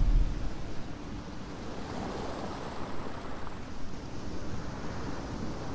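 Soft, steady rushing of ocean surf.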